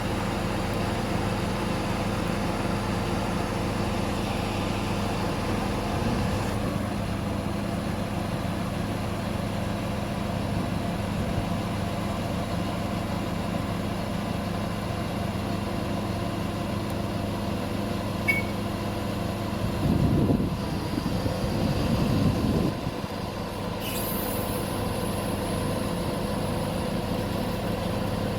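XCMG QY25K5A truck crane's diesel engine running steadily, with a louder, rougher low rumble for about two and a half seconds about two-thirds of the way through.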